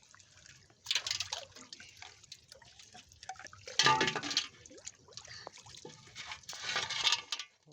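Water splashing and dripping, with three louder splashes: about a second in, around four seconds in (the loudest), and near the end.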